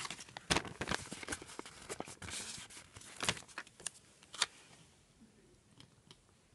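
Paper stickers and sticker sheets being handled, rustling and crinkling, with a run of sharp clicks and taps as a sticker is positioned and pressed onto a planner page; it quietens after about five seconds.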